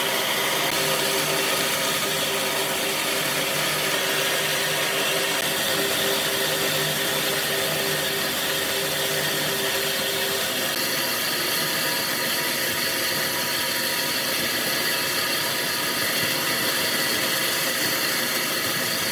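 A power tool running steadily with a hum under a dense whirring noise; its tone changes about ten seconds in.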